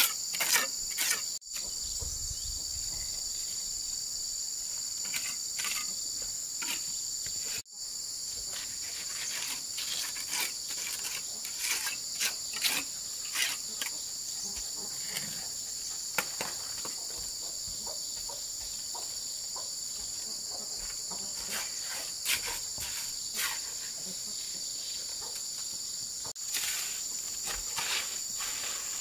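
Insects chirring in a steady, high-pitched chorus, with scattered knocks and clicks over it. The sound cuts out for an instant three times.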